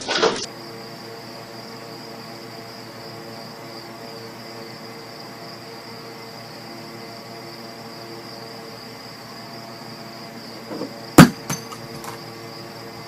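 A loud noisy burst cuts off about half a second in. Then a steady high-pitched whine sits over a low room hum. About 11 seconds in, a sharp knock with a few lighter clicks around it: a cat knocking an object over on a wooden dresser.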